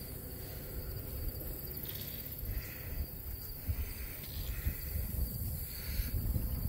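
Rural pasture ambience: a steady high buzz of insects over an uneven low rumble of wind on the microphone, with a few faint short soft noises in between.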